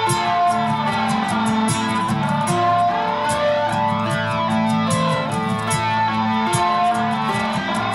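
Nylon-string guitar played instrumentally in a slow ambient style, single picked notes ringing on and overlapping one another.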